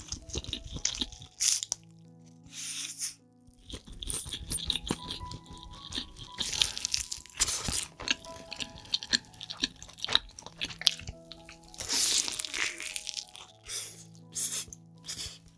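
Close-miked crunching and chewing as a person bites into and eats chicken leg pieces and noodles, with irregular crunchy bites throughout, over soft background music.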